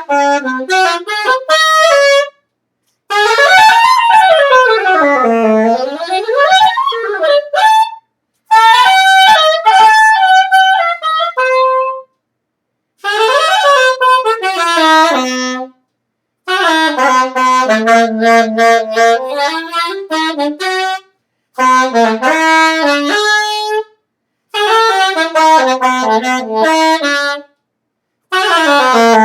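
Unaccompanied saxophone improvising freely in phrases of two to four seconds, each broken off by a short silence, with runs sweeping up and down the range of the horn.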